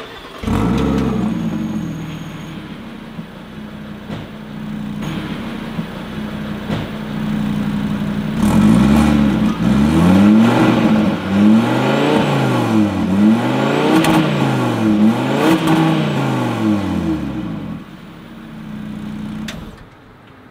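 Audi RS Q3's turbocharged 2.5-litre five-cylinder engine starting, the revs flaring then settling to a steady idle, heard at the exhaust. About eight seconds in it is revved repeatedly in quick blips, each rising and falling in pitch, then drops back to idle.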